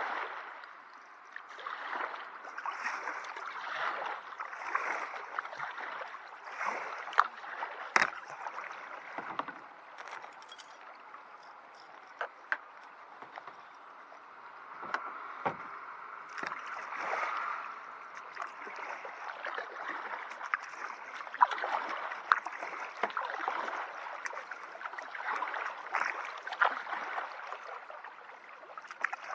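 Kayak paddle strokes in calm water: the blade swishes in and out with a splash, one stroke every second or two, with dripping and a few sharp clicks. The strokes ease off into a quieter glide for a few seconds about halfway through, then pick up again.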